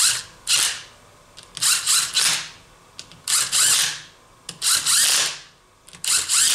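A workshop tool run in repeated short bursts, about six of them, each half a second to a second long, with short pauses between.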